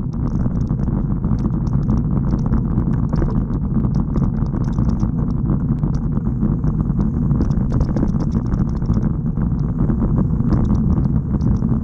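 Steady rumble of a road bike's tyres rolling over rough, patched asphalt, picked up through a bike-mounted camera, with scattered small ticks and rattles throughout.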